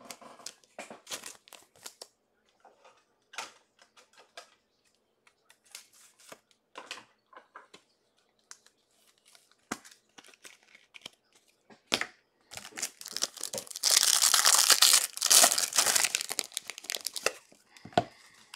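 Trading cards and packs handled on a table with scattered soft clicks and rustles, then about five seconds of loud crinkling and tearing as a sports-card pack's plastic wrapper is ripped open.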